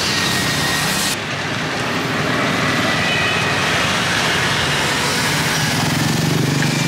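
Busy street traffic: a steady running of vehicle engines with a low hum and hiss. The hiss drops suddenly about a second in.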